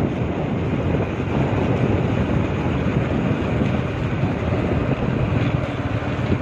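Steady rumble of wind buffeting the microphone together with the running noise of a moving vehicle.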